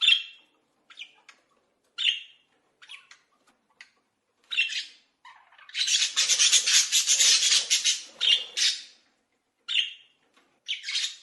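An animal's short, high-pitched calls, repeated at intervals, with a longer rapid, chattering call from about six to nine seconds in.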